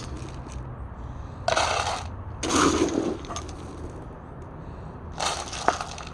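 Three short scraping noises, each about half a second long, with faint clicks between them.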